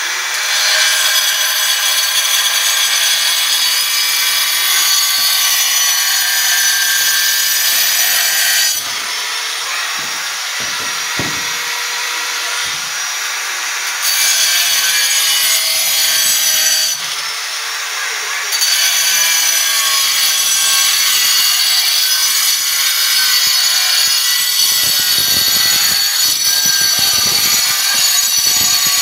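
Handheld angle grinder with a cutting disc running at a high-pitched whine as it cuts through ceramic tiles. The whine eases off twice, about nine seconds in and again at about seventeen seconds, as the disc runs lighter between cuts.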